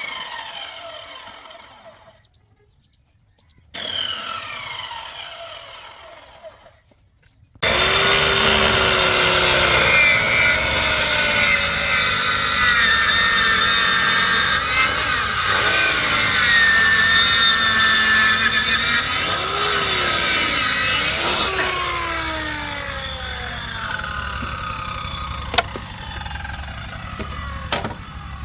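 Power saw cutting through a hardwood slab. The first few seconds are short pieces with a whine falling in pitch, then about seven seconds in a loud continuous cut begins whose pitch sags and recovers as the blade takes the load.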